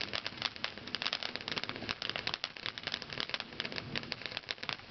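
Consumer firework crackling in a dense, irregular stream of small sharp pops, many a second, without a break.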